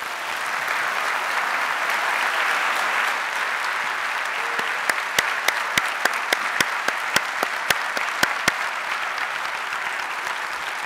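A large audience applauding steadily. Between about five and eight and a half seconds in, single sharp claps stand out above it, about three a second.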